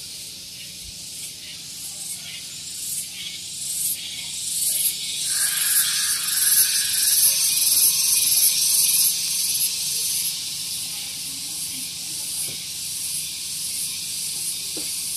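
Cicadas buzzing in the trees, a loud, shrill, high-pitched drone. The chorus swells to a peak about halfway through, then eases back to a steady buzz.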